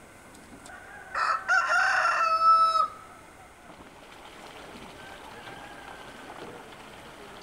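A rooster crows once, starting about a second in and lasting about two seconds, ending on a long held note.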